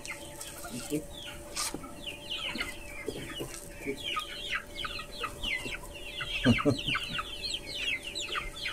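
A flock of young chickens peeping and clucking as they crowd round for corn: many short, high, falling chirps that grow denser about halfway through.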